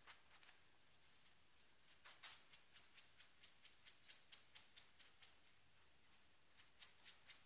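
Makeup sponge dabbing paint onto a foam squishy: faint quick taps, about four a second, stopping for about a second around five and a half seconds in and then starting again.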